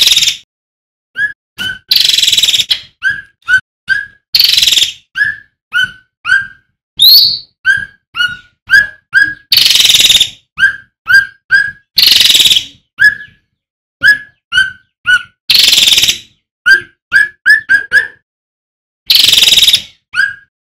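Male cucak ranting (cucak rante) calling: a fast series of short whistled notes, each flicking upward, broken about every two seconds by louder harsh, rasping bursts.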